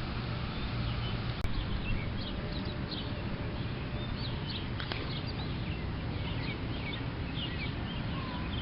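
Many short, high bird chirps scattered throughout, over a steady outdoor background hiss, with a single sharp click about a second and a half in.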